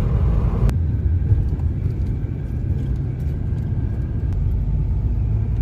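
Car driving, a steady low rumble of engine and road noise; just under a second in, the higher hiss drops away abruptly.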